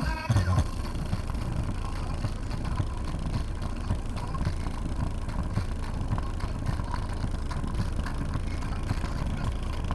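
Subwoofers playing deep bass through an amplifier: a steady low rumble, with a short burst of knocks right at the start.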